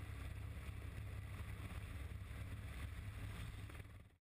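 Icebreaker under way: a steady low rumble with wind buffeting the microphone, cutting off suddenly near the end.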